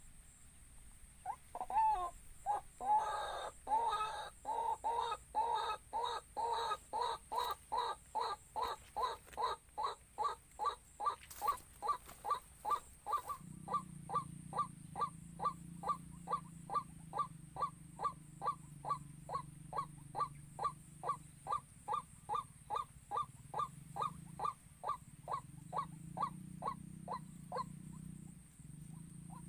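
White-breasted waterhen (ruak-ruak) calling: a short harsh note repeated steadily about twice a second, louder in the first half. A low steady hum comes in about halfway through.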